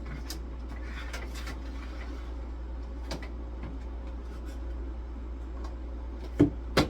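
Scattered light clicks of handling, then two sharp knocks about half a second apart near the end: a door being shut. A steady low hum runs underneath.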